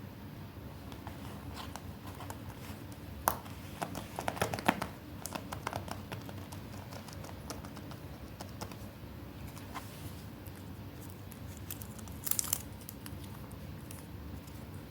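Paper being handled: crinkling and rustling with sharp little taps, in clusters about three to five seconds in and again near the end, over a steady low hum.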